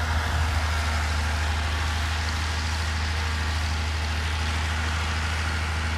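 Galion 118B motor grader's diesel engine running steadily under working load, a constant low drone.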